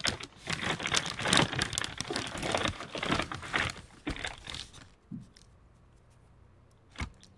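Crinkly wrapping handled and crumpled by hand for about five seconds, then quiet apart from one short tap near the end.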